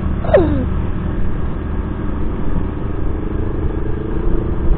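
Rusi Passion SC 125 scooter's engine running steadily under way, a continuous even hum over a low rumble. A short falling vocal sound comes just after the start.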